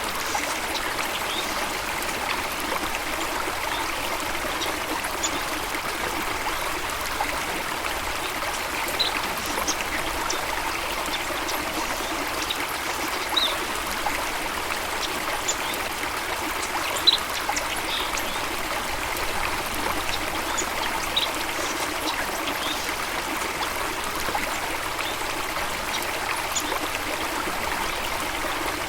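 Steady rush of running water, as from a stream or small waterfall, with brief high bird chirps scattered throughout.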